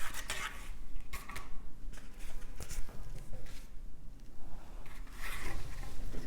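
A deck of playing cards being shuffled and handled to draw a card: scattered light clicks and snaps, then a longer brushing swish about five seconds in.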